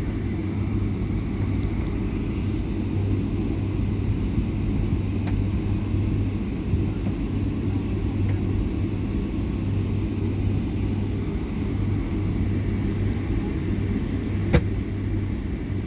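Jet airliner cabin noise while taxiing: a steady low rumble with a constant hum. A single sharp click sounds near the end.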